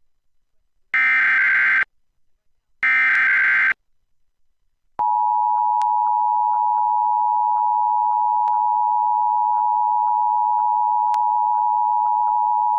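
Emergency Alert System alert header: two short bursts of SAME digital data about a second apart, then the steady two-tone EAS attention signal held for about eight seconds. This marks the start of a Required Monthly Test alert.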